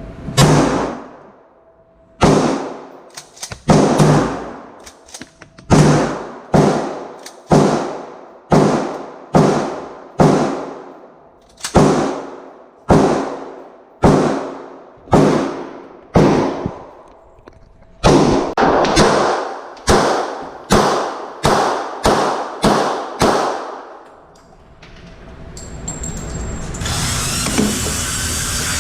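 A long string of about two dozen gunshots, each cracking and ringing out for most of a second, roughly one a second and coming faster toward the end. A steady rushing noise comes in over the last few seconds.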